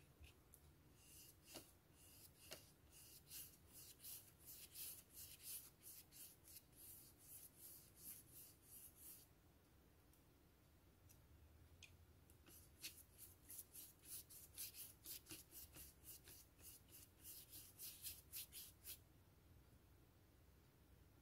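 Paintbrush scrubbing watercolour paint onto paper in quick back-and-forth strokes, faint, about three strokes a second. The strokes come in two spells with a pause of a few seconds between them.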